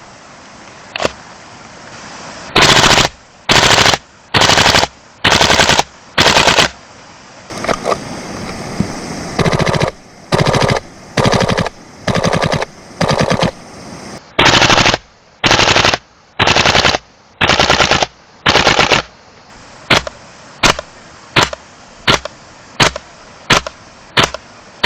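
WE G36C gas blowback airsoft rifle firing short full-auto bursts of about half a second each, the bolt clacking rapidly as it cycles on gas. Near the end it switches to single shots fired at a steady pace, about one and a half a second.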